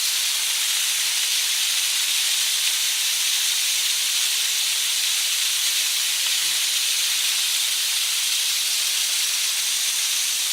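Waterfall in spate after heavy rain: a steady, unbroken hiss of rushing water, with rain falling.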